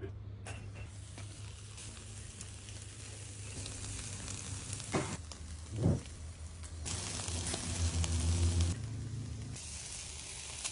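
Marinated meat skewers sizzling on a charcoal grill as more skewers are laid on the grate, the sizzle growing louder in the second half. Two short knocks come about five and six seconds in.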